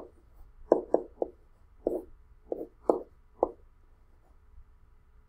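Soft, irregular taps of a pen or stylus on a writing tablet while working a sum by hand, about nine short knocks with gaps between them.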